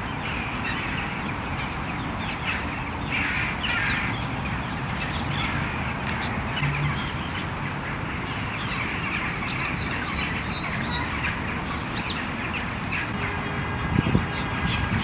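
Harsh bird calls, loudest about three to four seconds in, with scattered calls after, over a steady outdoor background hiss.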